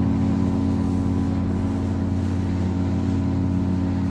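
Ocean liner SS Chusan's whistle sounding one long, steady, deep blast of several notes at once.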